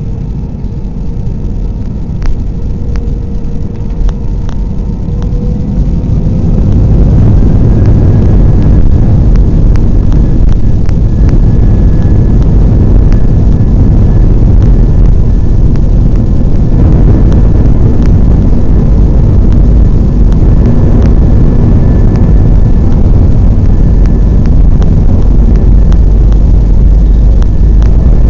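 Airbus A320 jet engines spooling up to takeoff thrust, heard from inside the cabin: a heavy rumble grows over the first several seconds, then holds steady and loud with a thin high whine. Occasional short knocks sound through it.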